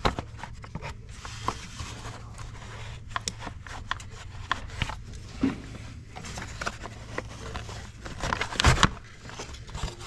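Plastic engine cover being worked loose and pulled off by hand: a string of clicks, scrapes and knocks as it is pried and its clips let go, loudest about three-quarters of the way through.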